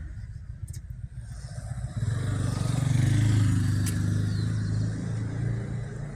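Street traffic, with a motor vehicle's engine passing close by. Its low engine note grows louder about two seconds in, is loudest near the middle, then fades away.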